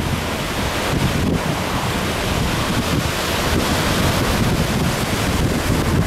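Pacific Ocean surf breaking over rocks and washing up a sandy beach, a continuous rushing wash, with wind buffeting the microphone and adding a rough low rumble.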